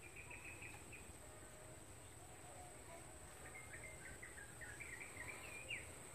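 Faint marsh ambience: a steady high insect drone throughout, with a bird chirping briefly at the start and then twittering in a warbling run from about three and a half seconds to near the end.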